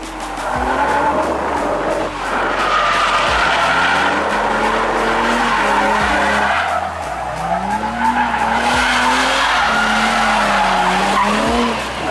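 Nissan 350Z drift car sliding through a drift, its engine revving up and down while the rear tyres squeal, the squeal swelling loudest twice.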